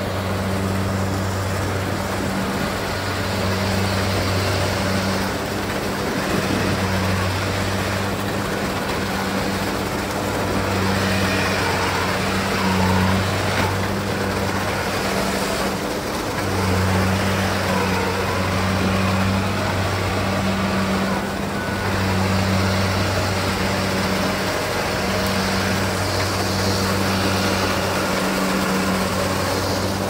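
Rice combine harvester at work cutting and threshing: a steady diesel engine drone with a low hum that swells and eases every second or two, over a broad mechanical rattle and hiss.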